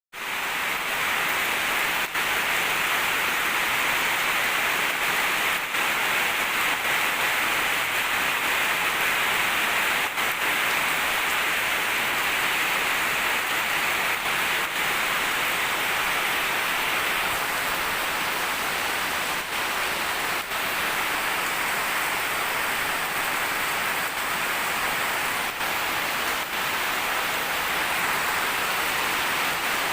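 Steady rain falling: an even, continuous hiss, with the odd single drop ticking out now and then.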